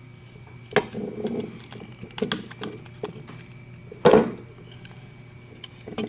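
Parts of a dome security camera being handled during a teardown: a string of sharp knocks, clicks and short clatters as pieces are picked up and set down, the loudest knock about four seconds in, over a steady low hum.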